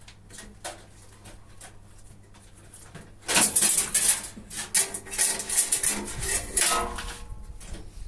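Metal and plastic parts inside an old Indesit washing machine's open cabinet being handled: a few faint clicks, then from about three seconds in a run of loud scraping and clattering with a brief metallic ring.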